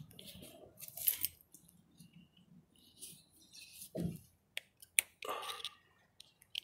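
Close handling noises: short rustles of cloth and a few sharp clicks, the sharpest about five seconds in.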